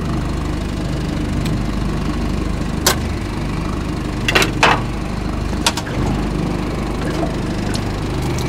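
A small boat's outboard motor running steadily, with a few sharp knocks over it around the middle.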